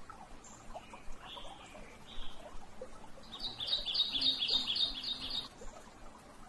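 Birds calling: a few scattered chirps, then a quick run of about eight sharp, high notes, some four a second.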